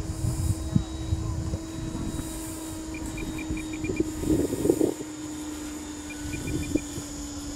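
Freewing T-45 electric ducted-fan RC jet in flight, its fan holding a steady pitch, with a louder burst of noise about halfway through.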